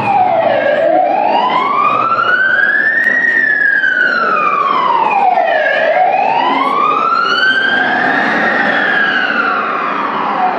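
A wailing siren, rising and falling slowly in pitch, about two full sweeps of roughly five seconds each, played as a recording over a PA loudspeaker.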